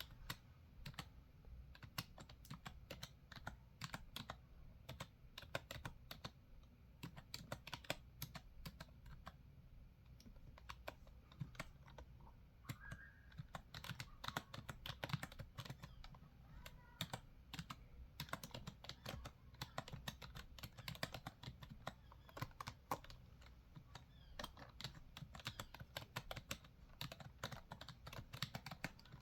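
Typing on a computer keyboard: a continuous, irregular run of quick key clicks.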